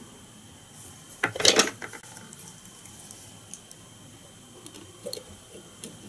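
Fly-tying tools and materials being handled at the vise: a short rustling clatter about a second and a half in, then a few small clicks.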